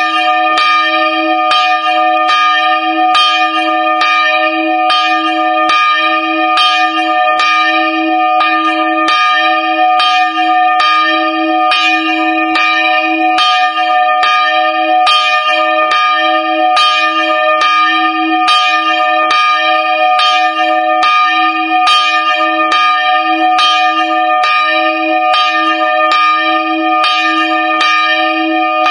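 A single church bell, cast in 1779 and 64.5 cm across, swinging and ringing alone, heard close up in the belfry. Its clapper strikes about once a second, and each stroke's ringing carries on under the next.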